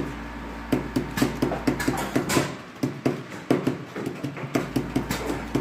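Vibratory parts feeder running with fish cakes: a steady low hum under irregular soft knocks, several a second, as the pieces are shaken along the feeder. The low hum drops out for a couple of seconds midway.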